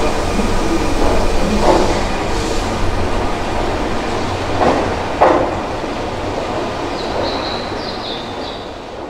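Keihan electric train running in an underground station, its rumble echoing off the walls and fading away steadily. A few sharp knocks come through in the first half, and a faint high squeal follows near the end.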